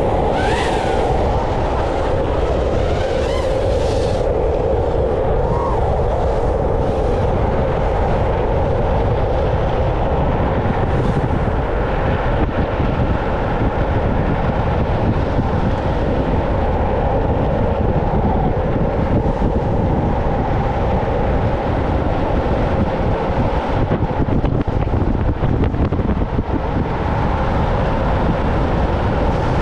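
Wind buffeting the action camera's microphone over the steady roar of longboard wheels rolling on asphalt at downhill speed, with a brief sharper hiss in the first few seconds.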